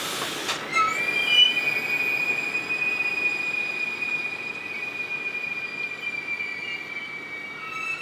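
Train's steel wheels squealing on the rails: a loud, steady high-pitched squeal of several held tones that sets in sharply about a second in and holds on.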